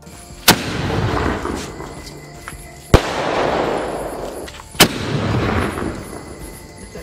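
Cock Brand 'Sky Flash' sky shot firing: three sharp bangs about two seconds apart, each followed by a second or so of crackling that swells and fades.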